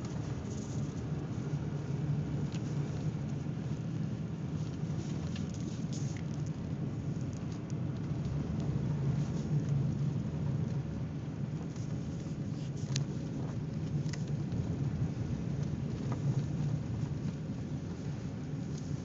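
Car driving on a snow-covered road, heard from inside the cabin: a steady low rumble of engine and tyres, with a few light ticks scattered through it.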